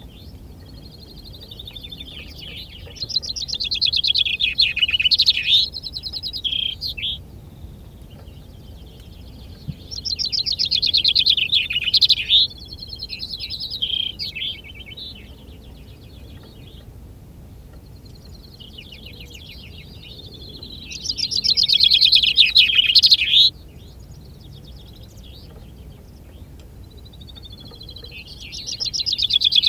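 Male chaffinch singing its full song in four phrases of a few seconds each, with pauses between them. These are the songs counted in a finch-singing contest.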